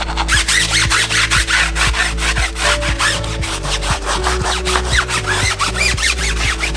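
Rapid back-and-forth scrubbing, a brush or pad rubbing hard against a surface at several strokes a second, during a car wash.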